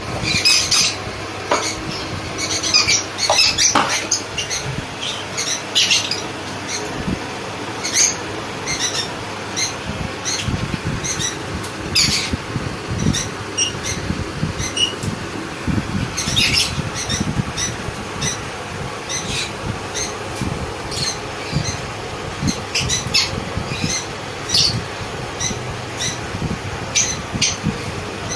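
Young sun conure chicks giving short, harsh squawks, repeated irregularly, often several in quick succession.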